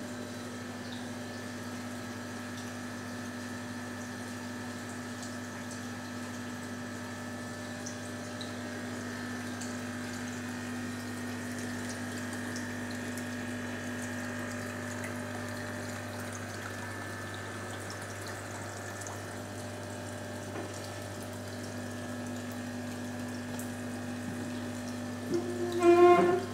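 Aquarium filter pump running with a steady hum over the sound of moving water. Near the end a brief, louder pitched sound cuts in for under a second.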